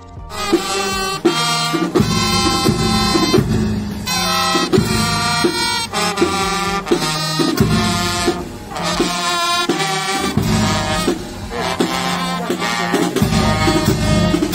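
Military marching band playing a march: trumpets and other brass carry the tune over a steady bass-drum beat with cymbal crashes.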